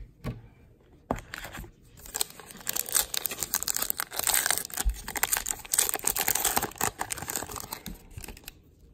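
A 2020 Topps Gypsy Queen baseball card pack wrapper being torn open and crinkled by hand, a dense run of crackling that starts about two seconds in and stops near the end, after a few light clicks.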